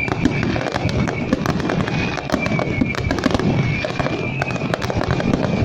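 Fireworks going off in rapid, dense succession: a continuous crackle of many sharp pops and bangs over a low rumble, with a high wavering whistle running through it.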